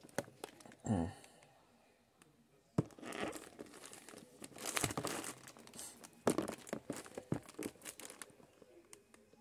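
Paper sandwich wrapper crinkling in irregular bursts as it is handled, with a sharp tap about three seconds in.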